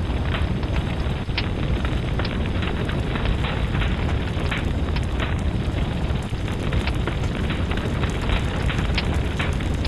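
Fireplace fire crackling steadily over a low rumble, with frequent sharp snaps and pops.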